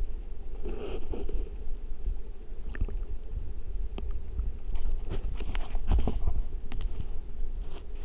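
Stream water heard underwater through a submerged camera: a steady low rumble of flowing water, with scattered small clicks and ticks throughout.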